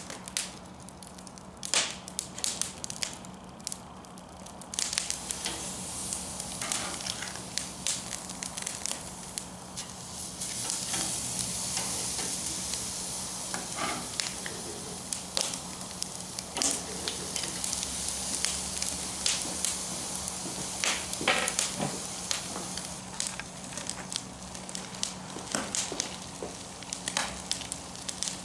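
Mesquite charcoal fire crackling and popping with a steady hiss. Partway through, the hiss grows louder as whole trout sizzle on the grill grate over the coals.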